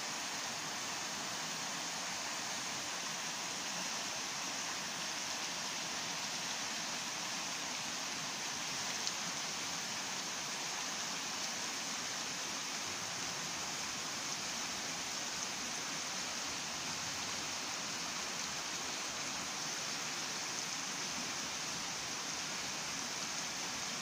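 Shallow stream running over rocks and pebbles: a steady rush of water.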